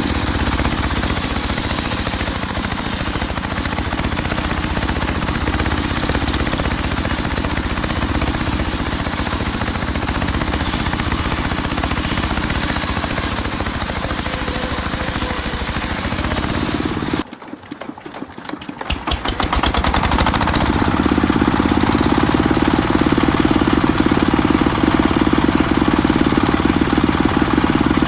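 Engine-driven homemade circular sawmill running steadily while ripping mahogany. The noise drops away sharply for about a second and a half about two-thirds of the way through, then comes back louder.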